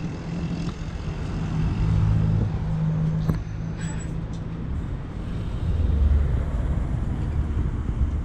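Diesel city bus running at a stop with a steady low engine hum that grows louder about five and a half seconds in. A few short clicks and a brief hiss sound around three to four seconds in.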